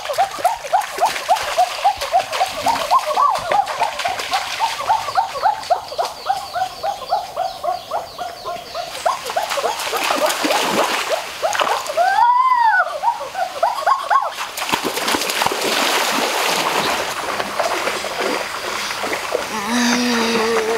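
Splashing of a person wading through shallow muddy water. Over the first half it comes with a rapid run of short pitched calls, about three or four a second, and a single call rises and falls about twelve seconds in.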